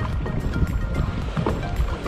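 Background music with a steady beat, over a low rushing noise from a pedal-driven kayak moving through the water.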